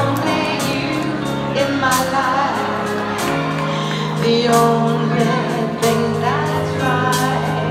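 Live band playing a slow ballad with long held chords, a woman singing over it.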